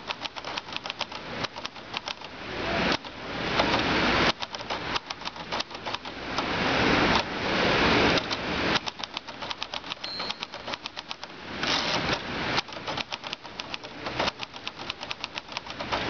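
1943 Hermes Baby portable typewriter being typed on: rapid clacking of the type bars, several keystrokes a second, in runs. A brief high ring comes about ten seconds in. Between the runs, a few swells of rushing noise about a second long each rise and stop sharply.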